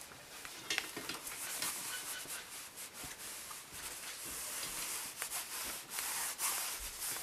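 Steam iron sliding over fabric on an ironing board: an irregular rubbing swish, with the fabric rustling and a few small clicks as it is handled.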